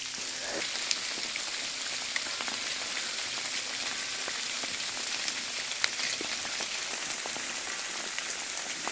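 Steady rain falling on leaves, branches and the forest floor, an even hiss with a few sharp ticks scattered through it.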